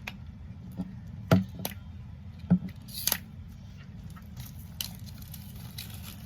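A Funko Soda can's packaging being handled and opened: a string of sharp clicks and crinkles, the loudest about a second and a half in.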